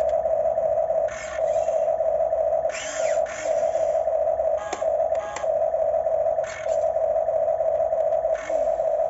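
Huina radio-controlled excavator's electric motors running with a steady mid-pitched whine as the arm and bucket move. The whine dips briefly every second or two, with short scratchy noises at the breaks.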